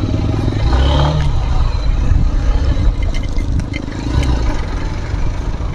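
Royal Enfield GT 650's parallel-twin engine running through an SC Project aftermarket exhaust, with a deep, steady exhaust note and wind on the microphone.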